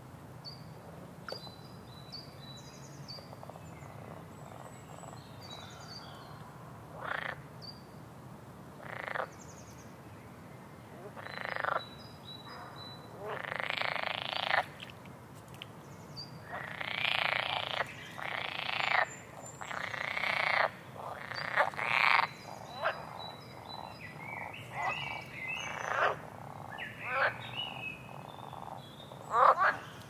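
Frogs croaking, separate calls of up to about a second each, coming more often and louder from about seven seconds in, with short high bird chirps above them.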